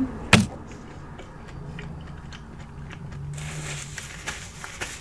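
Close-up eating sounds: a sharp smack a moment in, then scattered small clicks and a stretch of crunchy chewing near the end.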